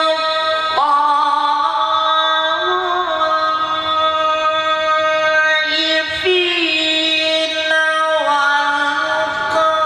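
Melodic Qur'an recitation (tilawah): a qari's voice holding long, high, ornamented notes on stretched vowels, stepping up in pitch about a second in and turning through a gliding run near the middle.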